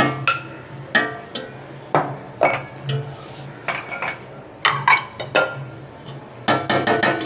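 Metal slotted spoon knocking and scraping against the inside of a large metal cooking pot while chicken and masala are spread over rice. There are about a dozen sharp, ringing clinks, with a quick run of them near the end.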